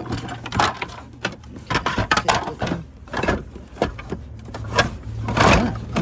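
Household items being shifted and rummaged through in a box: irregular knocks, clatters and rustles, with a louder scrape about five seconds in, over a steady low hum.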